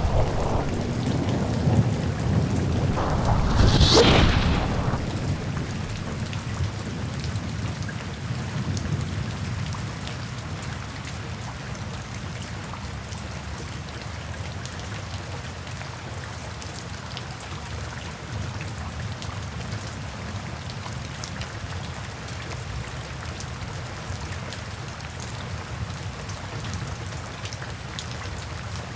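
Heavy rain falling steadily. A thunderclap cracks about four seconds in, in the middle of a low rumble that dies away over the next couple of seconds.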